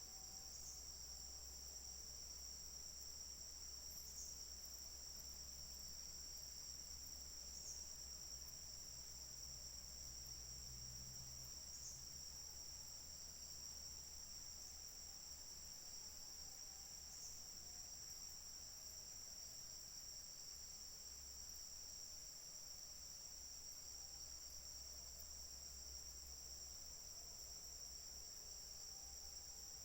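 Insects, crickets by their sound, trilling steadily and faintly at a high pitch without a break.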